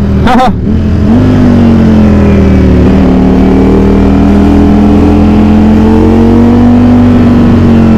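Ducati Streetfighter V4 SP's V4 engine running under way. Its pitch eases down over the first few seconds, then rises slowly and steadily through the rest.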